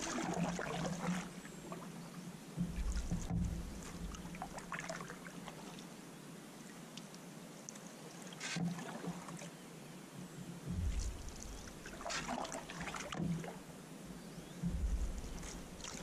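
Canoe paddle strokes in calm water: the paddle dipping and pulling, with splashes and drips every few seconds, and a few low thumps in between.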